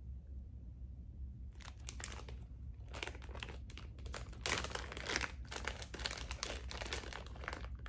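Clear plastic zip-top bag crinkling as it is handled and opened to take out a wax melt: a run of crackles that starts about a second and a half in and is loudest around the middle.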